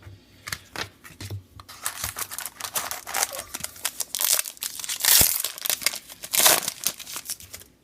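Foil trading-card pack wrapper being torn open and crinkled by hand, a run of crackling rustles with louder tearing bursts in the middle and near the end.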